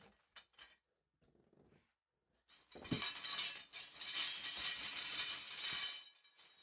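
Powder-coated metal grow-tent frame rods clinking and rattling against each other as they are handled. The clatter starts about three seconds in and lasts about three seconds.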